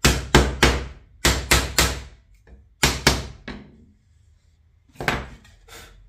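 About ten sharp knocks in quick groups of two or three, with a short pause before the last pair: a plastic water-jug cap being tapped down into a tight-fitting hole in an 18 mm plywood base.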